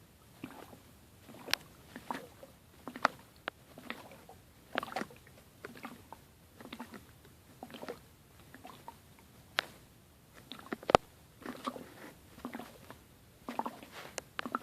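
A person hiccupping over and over: short, sudden hics about once a second, with mouth and breath noises between them. The sharpest, loudest hic comes about three-quarters of the way through.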